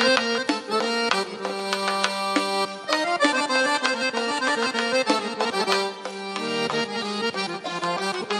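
Traditional Uzbek instrumental dance music: a fast melody over held chords, played over a loudspeaker.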